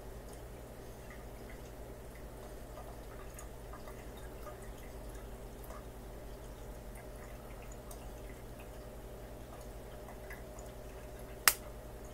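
Aquarium water dripping and trickling over a steady low hum, with faint scattered ticks. Near the end comes one sharp, loud crack: a peacock mantis shrimp striking a snail's shell.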